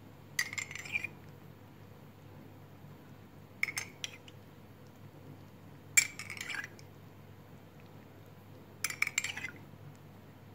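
Metal spoon clinking against a drinking glass as it scoops out milk, in four short bursts of clinks a few seconds apart.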